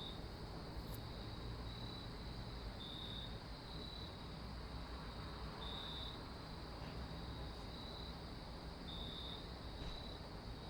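Crickets chirping: a steady high trill with short, louder chirps at uneven intervals, roughly once a second, over a low background rumble.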